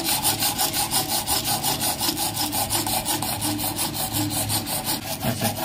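The helical gears and bushes of a Pico sewing machine's lower shaft grind together in emery and Brasso paste as a belt on its pulley turns the shaft, with an even scraping rhythm of about seven strokes a second. This is lapping in gears that run tight, so the shaft turns freely.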